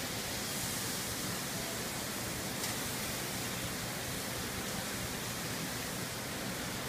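Steady, even hiss of restaurant kitchen background noise, with one faint click about two and a half seconds in.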